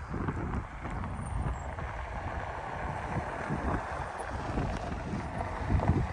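Wind buffeting the microphone: a steady low rumble with irregular gusty thumps.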